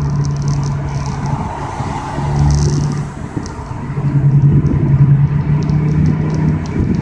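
Ford Focus ST's turbocharged 2.0 L four-cylinder heard through a custom MagnaFlow exhaust with resonator and muffler deleted, coming in through the open windows while driving. The engine note dips about three seconds in, then comes back louder.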